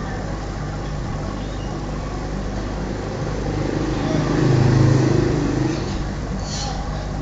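Steady low hum, with a louder low rumble that swells up a little past the middle and fades again over about two seconds.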